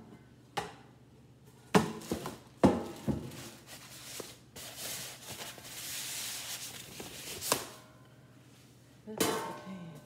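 An air fryer's metal basket and parts being handled on a countertop: several sharp knocks and clanks, with paper packaging rustling in the middle and a ringing metal clatter near the end.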